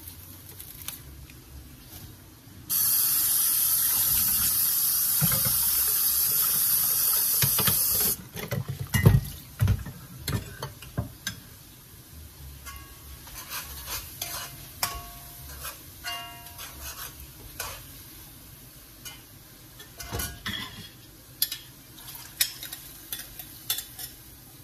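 Kitchen tap running in a loud steady rush for about five seconds, starting and stopping abruptly. After it, utensils knock and clink against pots and bowls, a few clinks ringing briefly.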